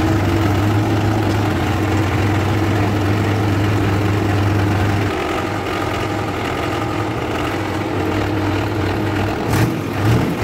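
Tractor engine running, heard from the driver's seat. A strong steady hum gives way to a rougher, less even running about five seconds in, with two brief louder bumps near the end.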